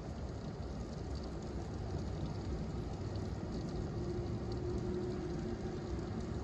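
Rain falling steadily in a thunderstorm, an even hiss over a constant low rumble.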